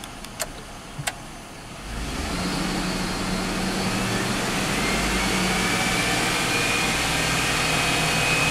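2001 Chevrolet pickup engine raised to about 2000 RPM with the AC off, rising about two seconds in and then held as a steady hum with a thin whine above it. It runs without the rattling, hissing noise it makes with the AC on, which points to a failing AC compressor.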